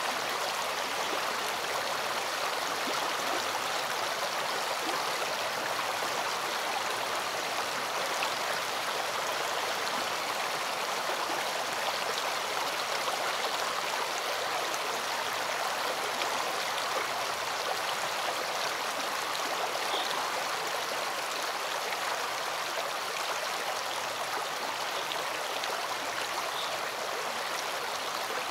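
A rocky stream running over stones, a steady, even rush of flowing water.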